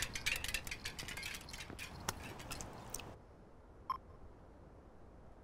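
Rapid, irregular, high-pitched clicking and ticking that cuts off suddenly about three seconds in. It leaves a low hiss, and one short beep sounds near the end.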